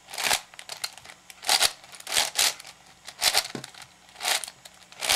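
Layers of a 7x7 puzzle cube being turned by hand through an edge-pairing algorithm: about six short scraping rattles of plastic, one every second or so.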